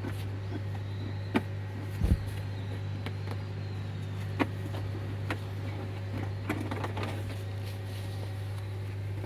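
Microwave oven running on a portable power station, a steady low hum, with a few light clicks and knocks over it.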